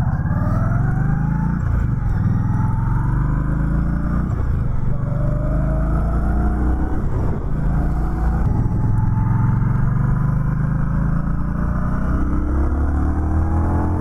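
2020 Indian Scout Bobber Sixty's liquid-cooled V-twin engine pulling hard through the gears. The pitch climbs and drops back at each upshift, about every two to three seconds, then rises more slowly near the end.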